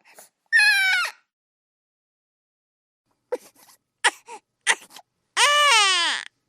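Baby crying: a short cry falling in pitch, a pause of about two seconds, then a few short catching sobs and a long wail that rises and then falls.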